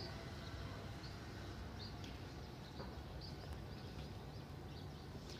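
Outdoor ambience: a steady low background hum with a few faint, scattered bird chirps.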